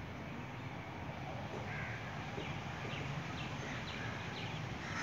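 Birds calling: one call about two seconds in and another near the end, with a quick series of short calls in between, over a steady low background noise.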